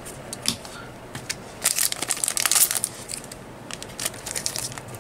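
Foil trading-card booster pack wrapper crinkling as it is handled and torn open by hand, in two spells of crackly rustling, about two seconds in and again near the fourth second.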